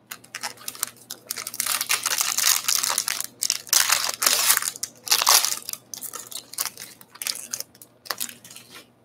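Plastic wrapper of a baseball card pack being torn open and crumpled by hand, an uneven run of loud crinkling and tearing.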